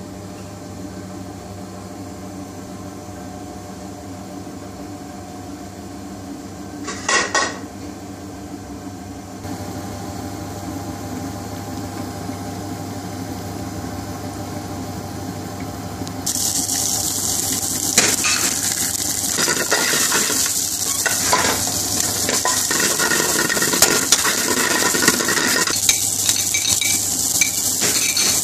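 A steady low hum, with a brief clatter about a quarter of the way in. A little past halfway, sliced onion and garlic go into hot vegetable oil in a steel frying pan and sizzle loudly, with a metal spoon clinking and scraping against the pan as they are stirred.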